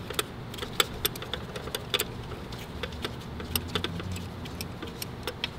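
Socket wrench on an extension working a starter bolt loose: irregular light metallic clicks, a few a second.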